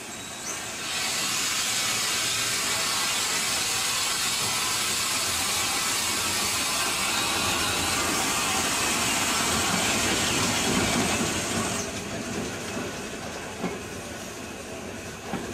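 Small industrial tank locomotive moving off with its passenger train, under a loud steady hiss that starts about a second in and cuts off near twelve seconds, leaving a quieter rumble of the train running past.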